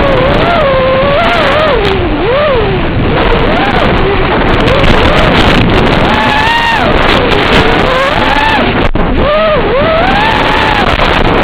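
Lumenier QAV-R 220 racing quadcopter's brushless motors and propellers whining, the pitch swooping up and down constantly with the throttle, under a heavy rush of wind on the microphone.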